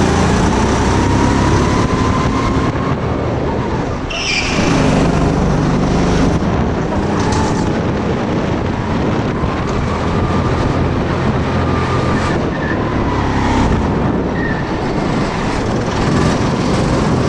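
Go-kart engine running at speed, heard from on board the kart. About four seconds in the engine note drops briefly, with a short high-pitched squeal, then picks up again.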